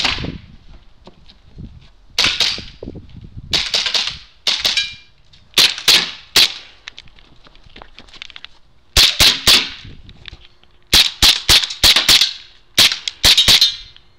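Gas blowback airsoft pistol firing sharp cracks in quick strings of two to five shots, with pauses of a second or more between the strings.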